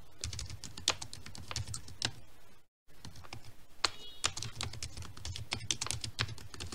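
Typing on a computer keyboard: a run of irregular key clicks, broken by a short dropout to silence a little under three seconds in.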